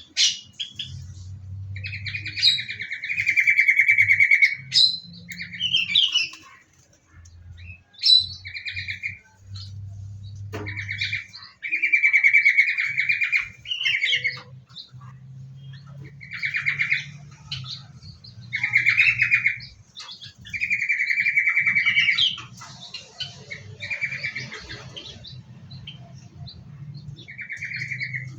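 Small aviary birds chirping and chattering in repeated loud phrases of a second or two, with short pauses between them, over a faint low hum.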